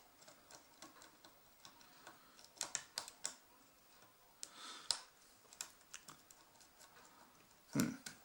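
Lock pick and tension wrench working the pins of a Brinks pin-tumbler padlock: faint, irregular clicks and scrapes as the pins are lifted and set, with a louder knock near the end.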